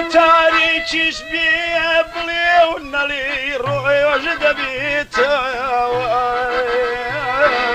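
A Kurdish song: a man sings an ornamented, wavering melody over instrumental backing, with a low beat about once a second.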